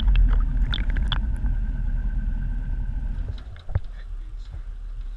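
Muffled underwater rumble of water around a submerged camera housing as a crab pot sinks on its rope, with a faint steady tone over it. A single knock comes about three and a half seconds in, and the rumble is quieter after it.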